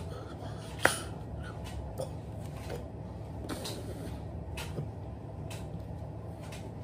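Sign-language signing without speech: a few soft clicks and taps from the signer's hand movements, with one sharper click about a second in, over a steady low room hum.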